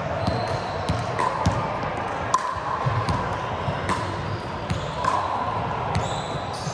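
Volleyballs being hit and bouncing on a hard gym floor, with scattered sharp thumps about every half-second to second. Short sneaker squeaks come in now and then, all echoing in a large hall.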